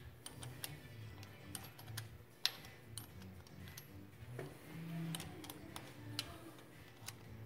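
Faint, scattered small metallic clicks and ticks of a bolt and square-headed nut being fitted and threaded at a distributor clamp, with one sharper click about two and a half seconds in. The cadmium plating makes the threads go on tight.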